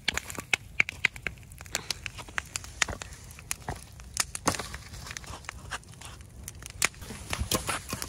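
Wood campfire crackling, with sharp, irregular pops several times a second.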